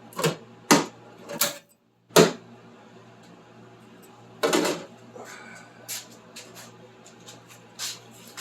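Sharp knocks and clicks of tools and sheet metal being handled on a workbench, four in the first couple of seconds, then a short scraping rustle about four and a half seconds in and a few lighter ticks, over a faint steady low hum.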